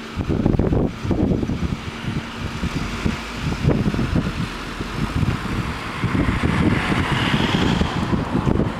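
Wind buffeting the microphone, with cars driving slowly over a level crossing; a car's tyre hiss builds and passes close in the last couple of seconds.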